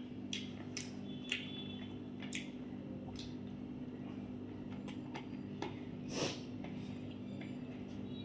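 Close mouth sounds of someone eating fried rice and chilli chicken: wet chewing and lip smacks heard as short separate clicks, a louder one about six seconds in, over a steady low hum.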